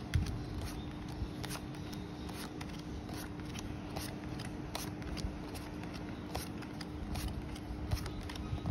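Tarot cards being handled one at a time: a run of light card clicks and slides at an uneven pace as each card is flipped and laid down. A steady low hum runs underneath.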